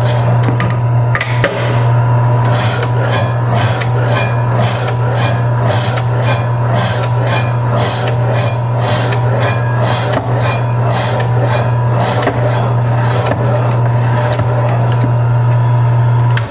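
KWS 320 W 10-inch electric meat slicer running with a steady motor hum while its spinning blade cuts beef: a quick run of rasping strokes, about two a second, as the meat is pushed through slice after slice. The motor cuts off at the very end.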